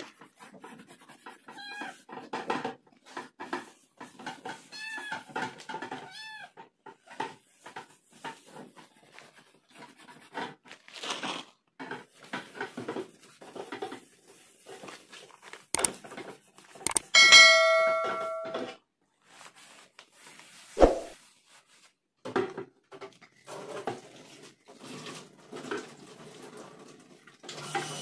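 Calico house cat begging for food, meowing in short rising-and-falling calls, several in the first few seconds, amid many small clicks and knocks. About two-thirds of the way through comes a loud ringing clang, then a single thud.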